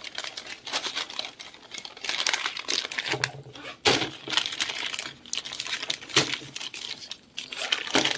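Paper shopping bag and plastic wrapping crinkling and rustling as hands handle them, in a run of irregular crackles with one louder, sharper crackle about four seconds in.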